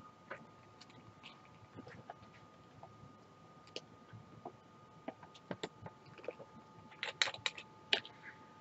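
Scattered small plastic clicks and taps from handling clear plastic diamond-painting drill storage pots and their case, with a quick cluster of sharper clicks about seven seconds in.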